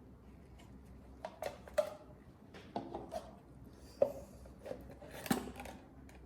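Packaging and utensils being handled on a table: a scattering of sharp clicks and light knocks with brief crinkles. The sounds are spread through the middle of the stretch, with three sharper clicks standing out.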